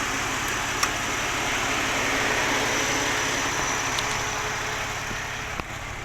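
Mercedes-Benz CLK320's 3.2-litre V6 idling, with a steady hiss over it and a few light clicks. The hiss eases off near the end.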